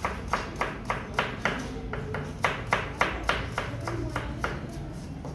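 Chef's knife chopping a vegetable on a plastic cutting board in quick, even strokes, about four a second, stopping near the end.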